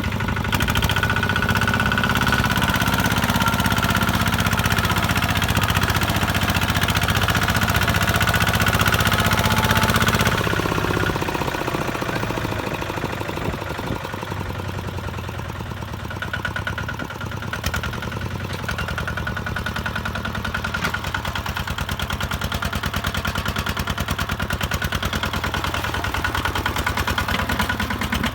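Kubota ZT-150 single-cylinder diesel engine of a two-wheel tractor running hard. About ten seconds in it drops back to a quieter, steady running.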